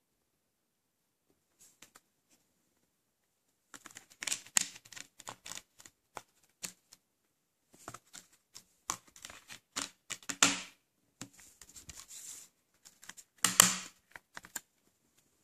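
Plastic clicks, taps and scrapes of discs being handled in an open Blu-ray case: the Blu-ray disc is set back onto its hub and the DVD is pressed off its hub. The clicks are irregular, with the loudest snaps about ten seconds in and near the end.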